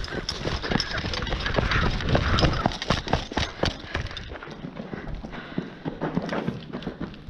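A run of sharp clicks and knocks at an uneven pace, roughly two to four a second, over a low rumble in the first few seconds.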